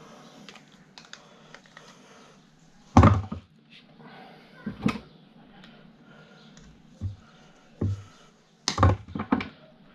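Hand work on scrap fuse-board parts: small clicks and rattles of metal parts and wire being handled and cut. A loud knock comes about three seconds in, a few more knocks follow, and a quick cluster of knocks comes near the end.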